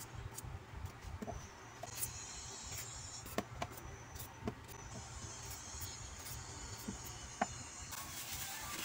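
Hand vegetable peeler scraping the skin off a potato and then a carrot, in short irregular strokes with light clicks as the peel drops, over a low steady hum.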